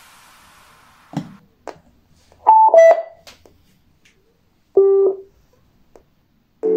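A homemade mini Bluetooth speaker switched on: a couple of clicks from its switch, then a loud two-note power-on beep falling in pitch. About two seconds later comes a single lower beep from the Bluetooth module.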